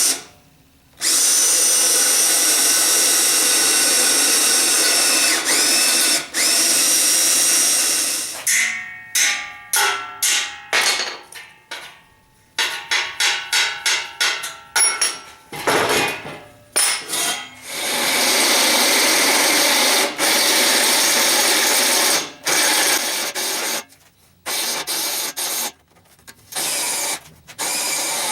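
Electric drill boring holes through steel tubing. It runs in long steady spells, with bursts of short trigger pulses in between, and stops and restarts several times.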